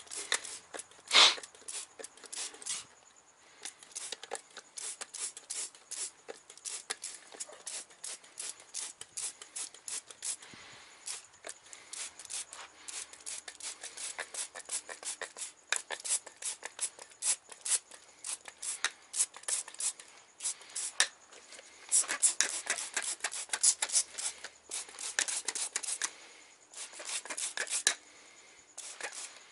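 Rapid, irregular scratching and rubbing in quick bursts as the degreaser-covered engine bay is worked over, with one louder knock about a second in.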